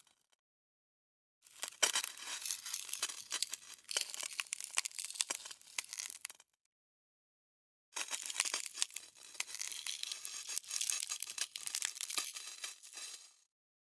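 Dense crackling, crinkling friction noise made of many small sharp clicks, like material being stressed and torn. It comes in two takes of about five seconds each, with a silent gap between them.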